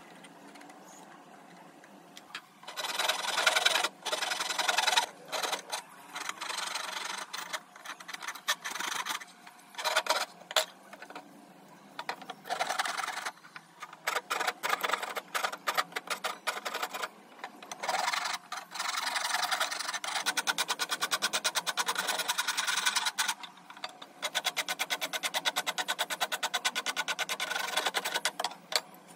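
Wood rasp and file scraping across a teak walking-stick handle in repeated back-and-forth strokes, starting a couple of seconds in. In the later part the strokes come quick and even.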